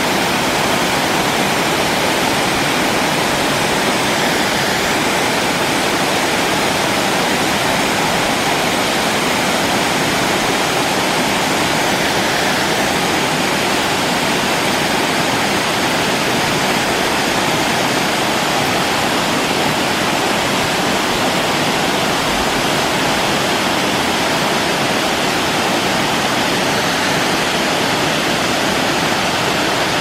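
A small woodland waterfall cascading down rock ledges into a brook that rushes over stones: a steady rush of falling and splashing water.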